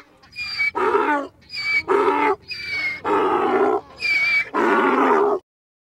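Donkey braying: a run of alternating hee-haw calls that cuts off suddenly near the end.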